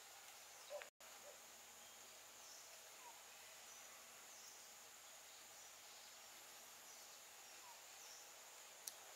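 Near silence: faint outdoor ambience with a steady high-pitched insect drone and a few faint, brief chirps. The sound cuts out for an instant about a second in.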